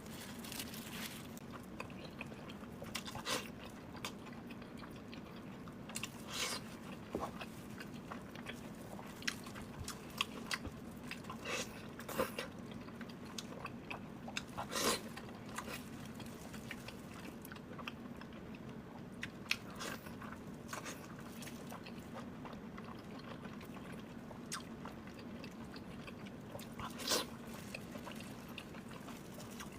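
Close-miked chewing and biting of big pieces of sweet and spicy pork belly with green vegetables: irregular wet smacks and small crunches, a few louder ones, over a faint steady hum.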